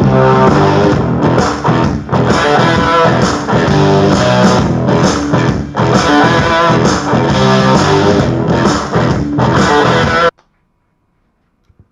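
Rock music with electric guitar and bass playing loudly, then cutting off suddenly about ten seconds in, leaving near silence.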